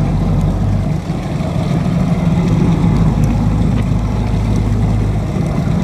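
Boat engine running steadily: a low, even drone.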